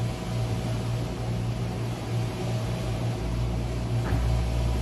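A running machine with a steady low hum and an even hiss over it.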